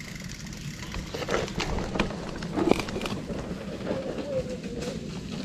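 Mountain bike rolling down a steep dirt trail: a steady low rumble of tyres on dirt and leaves, with the bike rattling and knocking sharply several times over roots and rocks.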